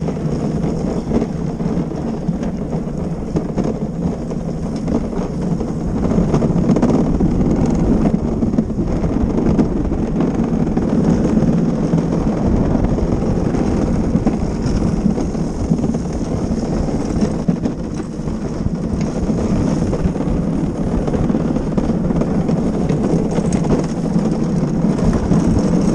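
Gravity luge cart rolling down an asphalt track, its wheels giving a steady rumble that grows louder from about six seconds in.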